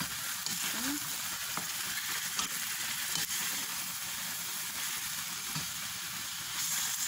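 Raw chicken pieces sizzling and bubbling in their own juices in a frying pan while a wooden spatula stirs and turns them: a steady sizzle with a few light ticks. The chicken's own water is being boiled off before any oil goes in.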